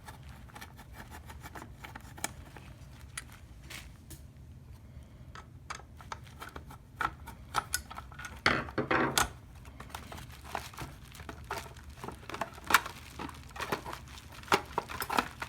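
Plastic parts of a car side-mirror housing being handled and worked apart: scattered clicks and taps, with a louder stretch of rustling and scraping about halfway through.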